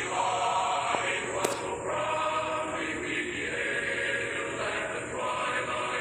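A choir singing a national anthem, with one sharp click about a second and a half in.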